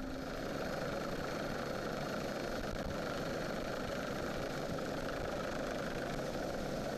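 Steady, even engine drone that holds the same level and pitch throughout, with no distinct strokes or revving.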